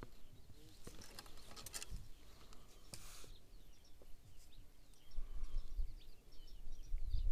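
Birds chirping in short scattered calls over outdoor ambience. There are a few sharp handling clicks in the first couple of seconds, and a low rumble on the microphone builds from about five seconds in.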